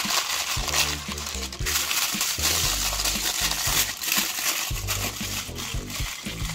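Aluminium foil crinkling and crackling as it is folded and pressed by hand, with background music carrying a bass line underneath.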